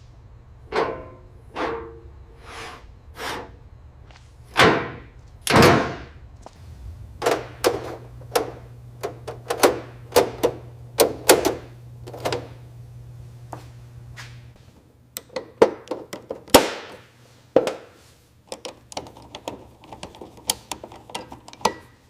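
A long run of irregular knocks and clanks, a few with a short ring after them, over a low steady hum that stops about two-thirds of the way through.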